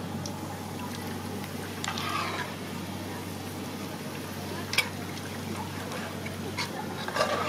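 Hot oil sizzling and crackling in a wok where shallots have just been fried, over a steady low hum, with one sharp click about five seconds in.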